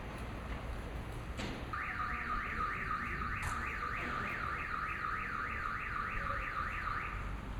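Car alarm siren sounding a fast repeating rising whoop, about three sweeps a second, that starts about two seconds in and stops shortly before the end, over a steady low background rumble.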